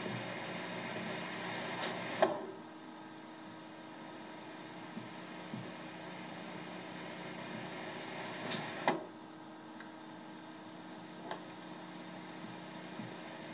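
Thrown hatchet striking the wooden target board twice, each a brief rush ending in a sharp thunk, about two seconds in and again about nine seconds in, with a faint knock later. A steady hum from the old videotape playback runs underneath.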